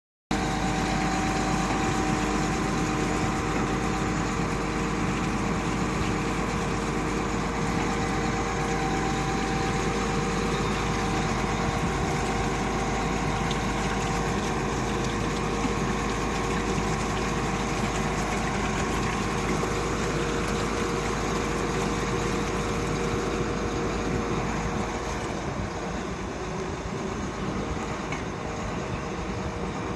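Diamond core drilling rig's engine running steadily, with a low rumble and a steady whine over it; the noise eases slightly near the end.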